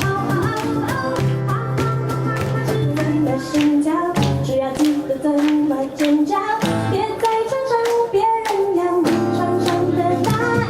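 Upbeat song performed live: a voice singing over instrumental accompaniment with a steady beat.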